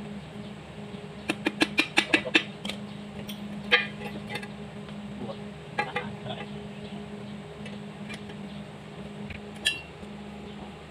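Metal hand tools clinking and tapping on a four-cylinder diesel engine block during teardown: a quick run of about eight sharp metallic clicks about a second in, then scattered single clinks, over a steady low hum.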